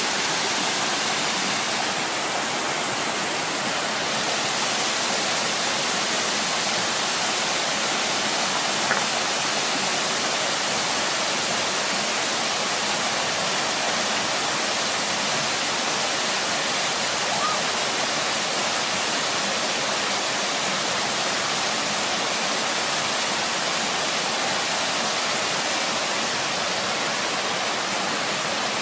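Waterfall pouring down, a steady, unbroken rush of falling water.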